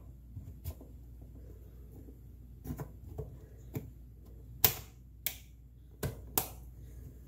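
Scattered sharp plastic clicks and taps as a DDR4 memory stick is pushed down into a motherboard DIMM slot. The loudest click comes a little past halfway and two more come near the end, as the module seats and the slot's retaining latch snaps shut.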